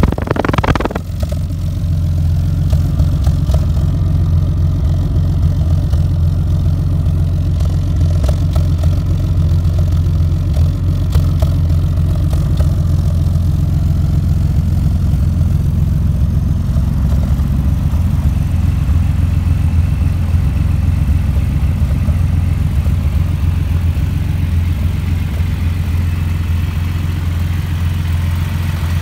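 The 2002 TVR Tamora's 4.3-litre Speed Six straight-six engine idling steadily, heard close at its exhaust tailpipes, with a deep, even exhaust note.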